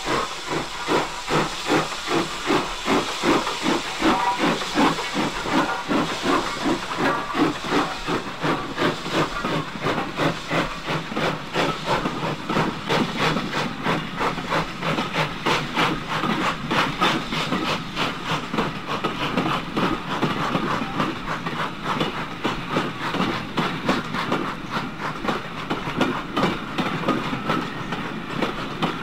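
SECR 'D' class 4-4-0 steam locomotive No. 31577, a two-cylinder engine, pulling away with a train up a 1 in 200 rising gradient: sharp, regular exhaust beats over a hiss of steam, about two or three a second at first and quickening as it gathers speed.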